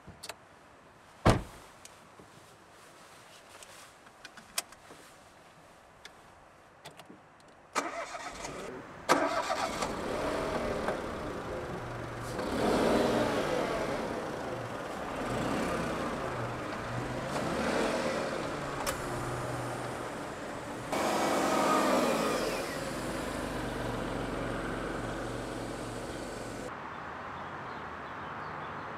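A sharp click and a few lighter clicks, then a smart fortwo's three-cylinder engine starts about nine seconds in and runs, its revs rising and falling several times before it settles into a steadier run.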